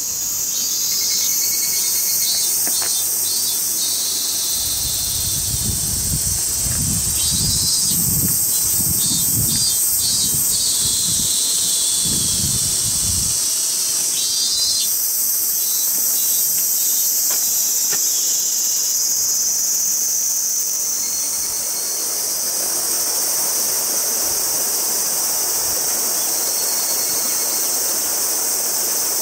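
A high, steady chorus of summer insects, with short pulsed chirps over it now and then. A low, uneven rumble comes and goes for several seconds near the middle, and the rush of a stream grows in over the last several seconds.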